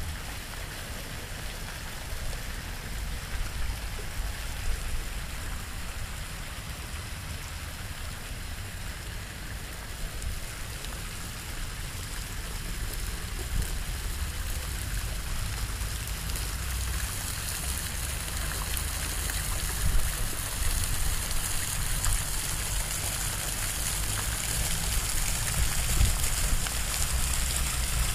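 Fountain jets splashing into a pool: a steady watery hiss that grows louder and brighter in the second half, with a low rumble underneath.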